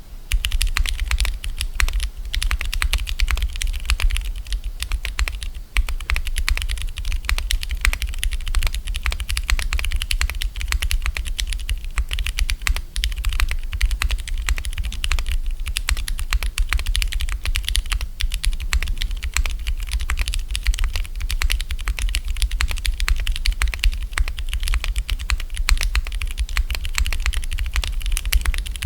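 Continuous fast typing on a Neo70 gasket-mount mechanical keyboard with an aluminium plate and no foam, its switches Cherry MX Blue housings fitted with Durock T1 Sunflower tactile stems: a dense, unbroken stream of keystroke clacks.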